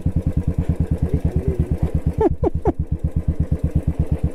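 Royal Enfield Bullet's single-cylinder engine running at low revs with an even thump, about eight beats a second. A brief murmur of voice about two seconds in.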